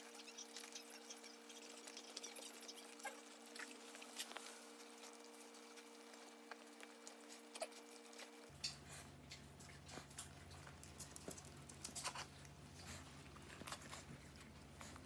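Faint chewing and smacking of two small dogs, a poodle and a bichon frisé, eating beef from bowls, with many small scattered clicks.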